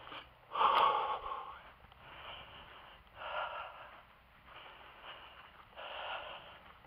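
Repeated short puffs of air, about one every second and a half, the loudest just under a second in.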